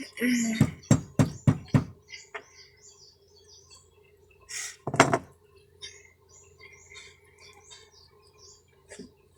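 About five quick knocks in a row in the first two seconds, then a single louder knock about five seconds in, with birds chirping in the background.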